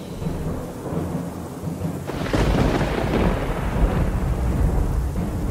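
Thunderstorm ambience: steady rain, with a roll of thunder swelling about two seconds in and rumbling on.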